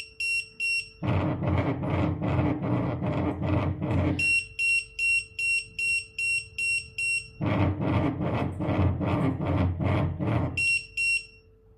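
Restaurant guest pager alerting: rapid high electronic beeps, about three a second, take turns every three seconds or so with a pulsed rattling buzz from its vibration motor. The beeping stops near the end.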